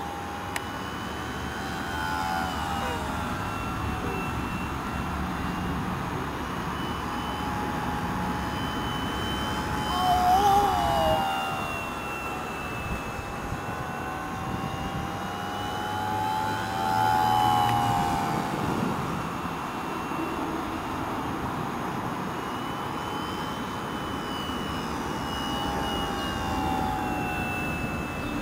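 Brushless electric motor and scale four-blade propeller of a small radio-controlled foam Spitfire Mk IX model whining in flight, the pitch rising and falling as it manoeuvres. It gets louder twice, about ten and seventeen seconds in, as the model comes close.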